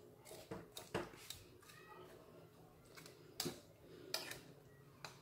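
Faint, scattered clicks and light scrapes of a knife against a glass baking dish as sauce is worked in among the cutlets and peppers.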